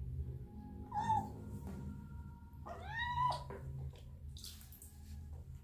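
Young kitten meowing twice while standing in warm bath water: a short mew about a second in, then a longer meow that rises and holds about three seconds in.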